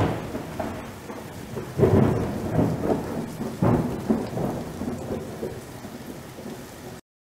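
Thunderstorm: steady rain with three rolls of thunder, one at the start, one about two seconds in and one nearly four seconds in. The sound cuts off suddenly near the end.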